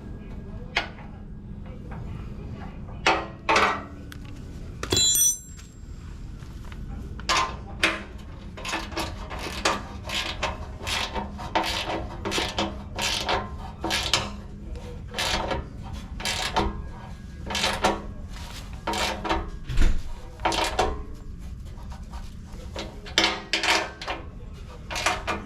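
Hand tools being worked on metal: a run of sharp clicks and knocks, about two a second, after a few scattered knocks, with a brief high squeak about five seconds in.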